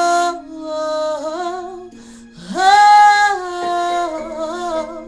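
A woman singing long, melismatic "oh" phrases of a gospel ballad, her pitch bending and wavering through each held note. Soft, steady accompaniment notes sound underneath.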